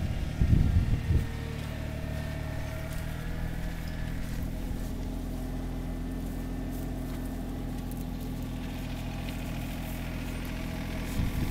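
An engine running steadily at idle, an even low hum, with a few louder knocks and rustles in the first second.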